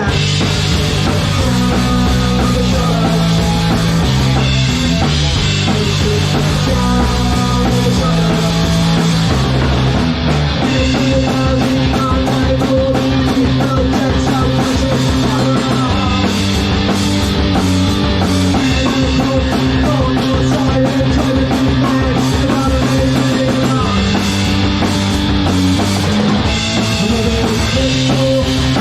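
Punk rock band playing, with driving drum kit, electric guitar and bass holding notes that change every second or two.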